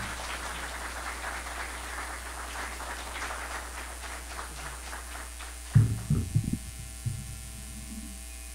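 Audience applause that fades out over about five seconds, then a few low knocks on the podium microphone as papers are set down on the lectern, over a steady low hum from the public-address system.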